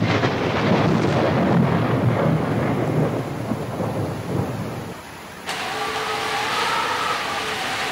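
Thunder rumbling over heavy rain for about five seconds, then dying away. After an abrupt change the rain goes on as a steady hiss.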